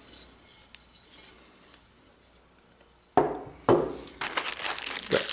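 Two sharp clinks of metal hardware being put down a little past halfway, followed by the crinkling of a plastic bag of hardware being handled.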